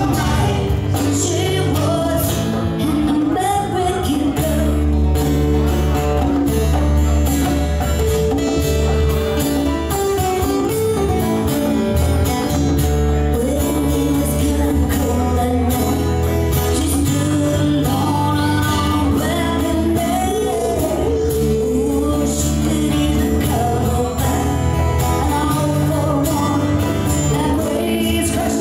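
Live acoustic band playing a song: strummed acoustic guitars, a steady bass line and hand-played congas, with singing over them.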